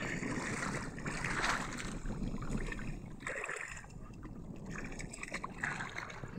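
Shallow seawater sloshing and splashing as someone wades through it, with a few louder splashes.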